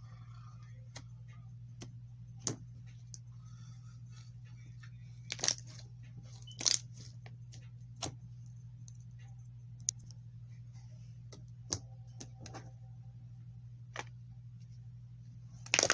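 Slime being handled and squeezed, making scattered small clicks, pops and crackles at irregular intervals over a steady low hum.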